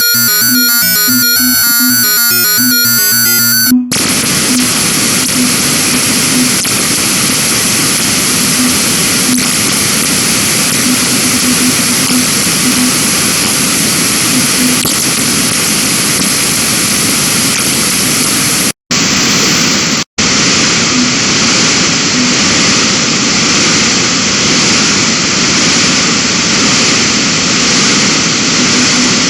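Loud, harsh computer-generated bytebeat audio from a GDI malware payload. It opens as a fast stepped pattern of beeping tones, then about four seconds in switches abruptly to a dense static-like noise with a faint repeating low tone. The noise cuts out twice briefly near the middle and comes back duller.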